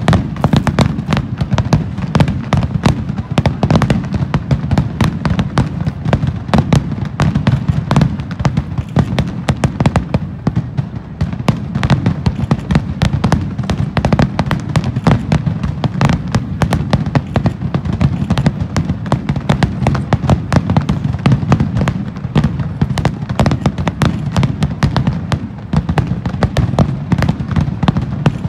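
Aerial firework shells bursting in a dense, continuous barrage: many sharp cracks each second over a steady low rumble.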